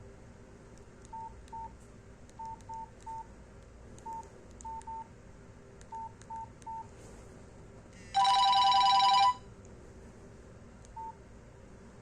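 Nokia C2-01 keypad beeps: about a dozen short single-pitch beeps in ones, twos and threes as keys are pressed. About eight seconds in comes a louder steady two-pitch tone lasting about a second.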